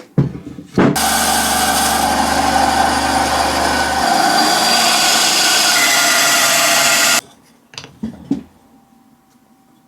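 A power tool runs continuously for about six seconds on wood being shaped into a climbing hold, its pitch shifting about four seconds in, then cuts off abruptly. A few short knocks come just before it starts and two more shortly after it stops.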